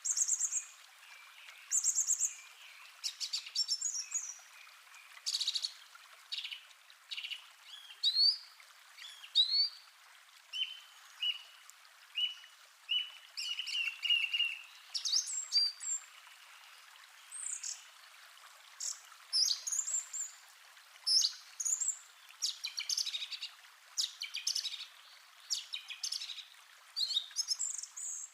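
Recorded forest ambience: several birds chirping and singing, with short upward-sweeping whistles and a run of quick repeated notes partway through, over a faint steady hiss.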